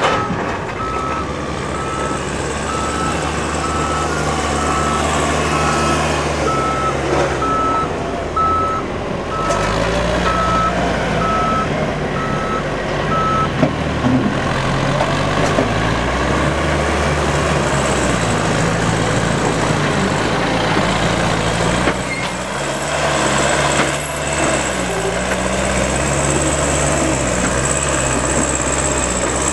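Manitou telehandler's diesel engine working under load, its pitch rising and falling as the driver revs up and eases off. Its reversing alarm beeps about once a second through the first half, then stops.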